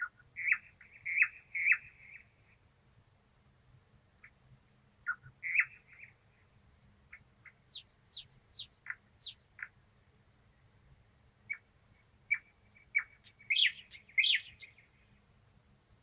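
Thrush nightingale singing in separate phrases of loud, sharp notes with pauses between them. About halfway through comes a run of quick falling whistles, roughly two a second, and near the end a dense burst of notes.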